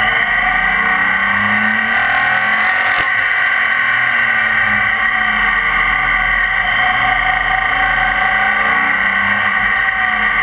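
BMW K 1600 GTL's inline-six engine running under way, its pitch rising and falling gently through the bends, mixed with steady wind and road noise.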